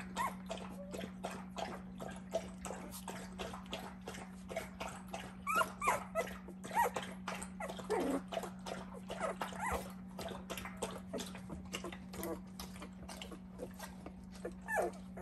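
Two-week-old puppies whimpering and squeaking in short, high, wavering cries, with many small clicks and rustles as they squirm against each other; a steady low hum runs underneath.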